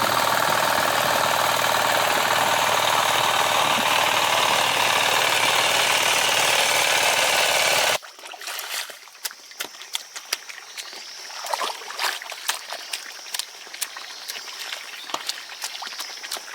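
Farm machine engine running loudly and steadily with a hard, rattling beat, used for harrowing and digging a flooded plot. It cuts off suddenly about eight seconds in, leaving quieter splashing water and scattered small clicks.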